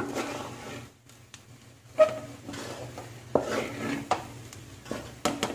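A wooden spatula stirring and scraping cooked fried rice around a metal pot, with irregular knocks of the spatula against the pot, the loudest about two seconds in with a short ring.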